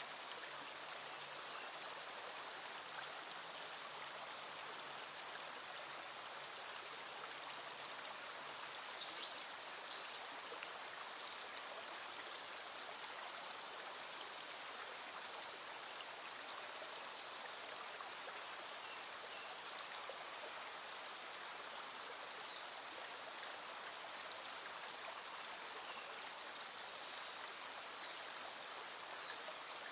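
Small stream running over stones, a steady rushing. About nine seconds in, a run of about six high chirps a second apart rises above it, fading out, with a few faint high notes later.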